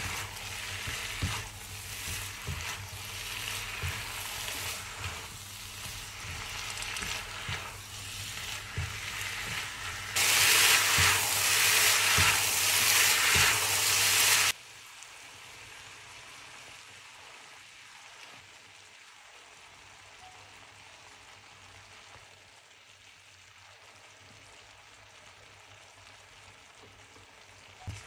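Chicken and vegetables stir-frying in a sauce in a wok: a steady sizzle with the spatula knocking against the pan about once a second. A louder sizzle follows for a few seconds, then the sound drops suddenly, about halfway through, to a faint, even hiss.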